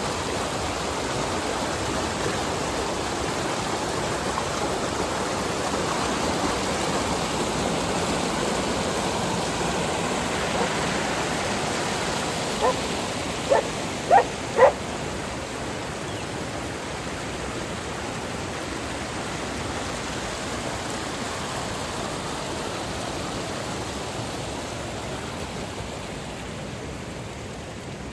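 Steady rush of flowing water from a stream or waterfall, easing off a little near the end. About halfway through, a dog barks four times in quick succession.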